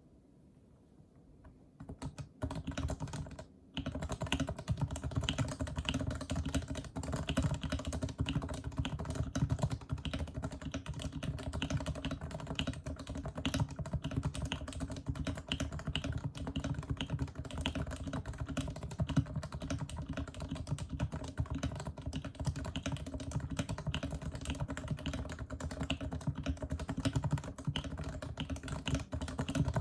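Fast, continuous typing on a Leopold FC660C keyboard with 45g Topre electrostatic-capacitive switches under rubber domes, unsilenced and lubed, giving a deep, rounded thock on each keystroke. Typing begins about two seconds in, with a short pause soon after.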